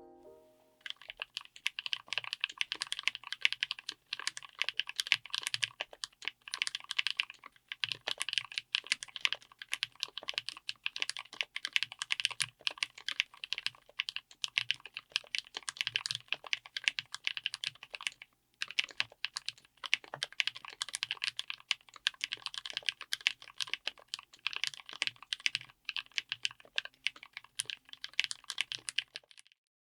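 Fast continuous typing on a mechanical keyboard with Keebfront Bigwig long-pole linear switches (HDPE and PBT housings) in a Tofu60 aluminium case with an FR4 plate: a dense stream of keystroke clacks with a few short pauses.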